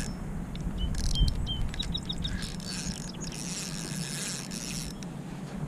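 Spinning reel being cranked to bring in line, a light whirring with a few faint clicks, over low wind rumble on the microphone. A few short high chirps sound about a second to two seconds in.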